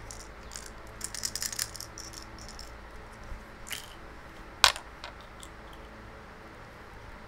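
Small plastic parts of a Crazy Yileng twisty puzzle rattling and clicking as an edge piece is shaken and picked apart, a loose extra part inside the edge piece causing the rattle. A quick flurry of light clicks about a second in, then one sharp click midway, the loudest.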